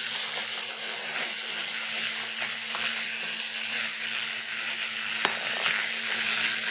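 Wind-up clockwork toy animals running, their spring-driven gear mechanisms making a steady high buzzing whir, with a couple of sharp clicks as the toys knock about.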